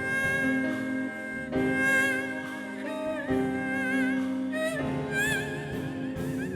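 Korean traditional instrumental music: a sustained high melody with a wavering vibrato over held lower notes, moving in long phrases.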